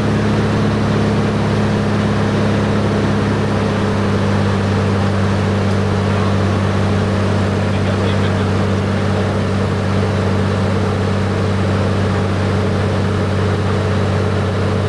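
Steady drone of a single-engine high-wing light aircraft's engine and propeller in cruise flight, heard inside the cabin: an even, low hum with no change in pitch.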